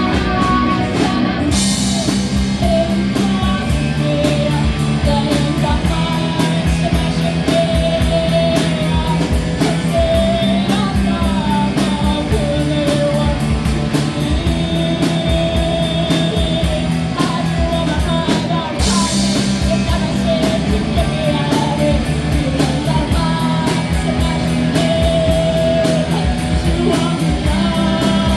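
Rock band playing live, guitar to the fore, over a steady beat.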